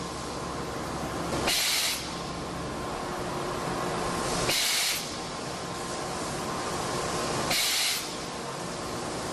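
JKP-650 cold forging machine running with a steady hum. Three short blasts of compressed air hiss, about every three seconds.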